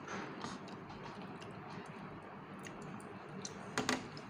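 Close-up eating sounds: soft chewing with small wet mouth clicks, and a couple of louder lip smacks near the end as fingers are licked.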